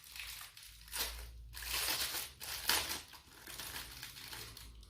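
Packaging crinkling and rustling in irregular bursts as a small paint-pouring funnel is unwrapped by hand, loudest between about one and three seconds in.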